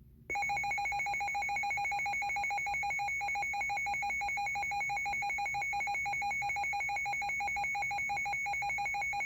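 Weather radio receiver's electronic alert alarm: a loud, shrill, rapidly pulsing and warbling beep tone that starts abruptly and holds steady. It signals that a new warning has been received.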